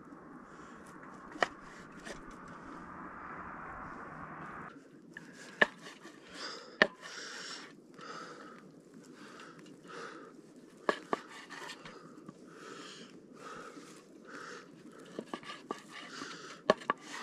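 A meat cleaver slicing fatty pork on a wooden cutting board: sharp knocks at irregular intervals as the blade meets the board, with scraping between. Short, heavy breaths close to the microphone come between the cuts.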